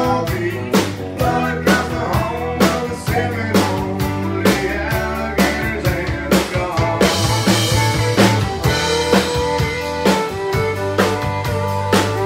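Live country band playing: a drum kit keeps a steady beat under acoustic and electric guitars and fiddle.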